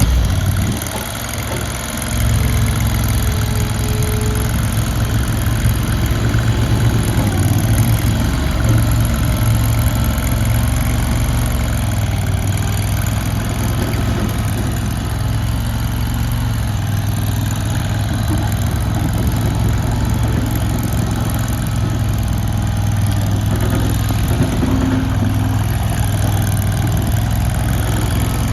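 Gas engine of a small skid steer loader running just after starting, steady with a rise in level about two seconds in as it is throttled up.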